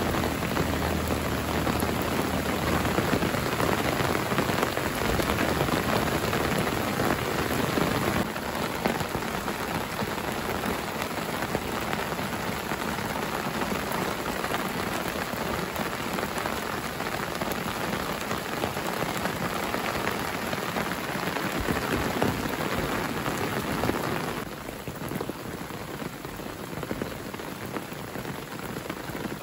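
Steady rain falling on leaves and grass, an even hiss of many drops. It gets a little quieter about eight seconds in and again a few seconds before the end.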